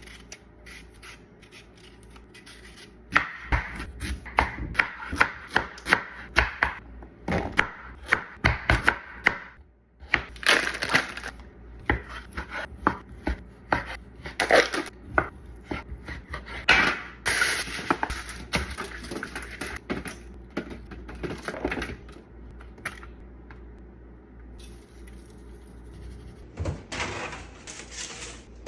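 Knife chopping an onion on a cutting board: quick, irregular cuts starting about three seconds in, easing off for a few seconds near the end, then a few more cuts.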